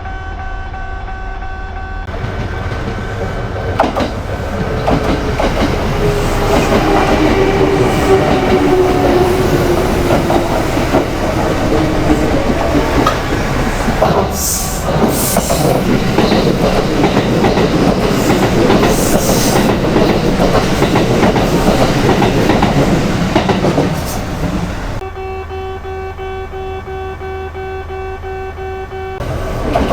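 Level-crossing warning bell ringing in a steady repeating clang while a train passes over the crossing, its noise loud enough to cover the bell from a couple of seconds in. The train gives a falling whine and brief high-pitched wheel squeals twice around the middle; the bell is heard alone again near the end, just before another train's noise starts.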